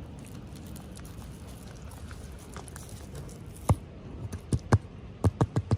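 Toy packaging handled by hand over a low steady background hiss: a single sharp click or tap past the middle, then a quick run of about six more clicks and taps near the end.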